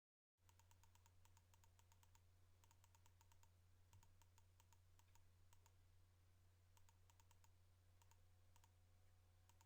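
Near silence: faint, rapid clicking in short runs, like typing on a computer keyboard, over a steady low electrical hum.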